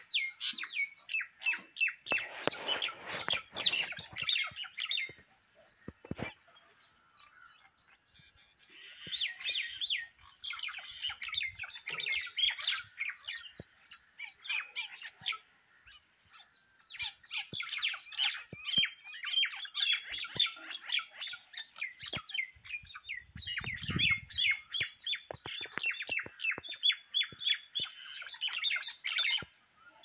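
Birds squawking and chattering harshly while fighting: rapid, rasping calls in three long bouts separated by short lulls.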